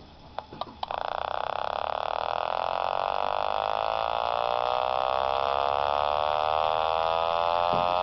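Reed-switch pulse motor driving a tiny spinning magnet top, its switching picked up by a small radio as a steady buzzing tone. The buzz starts after a few clicks about a second in, and its pitch shifts smoothly as the rotor winds up to many thousand RPM.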